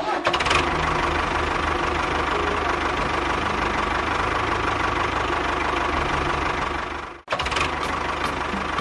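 A motor running steadily with a fine rapid pulsing and a steady whine, cutting out abruptly about seven seconds in and starting straight up again.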